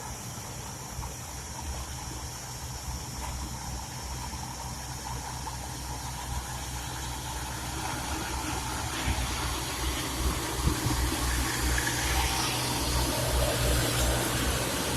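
Engine of road-construction machinery running steadily with a low hum and a rushing noise, growing gradually louder, with a few low thumps in the second half.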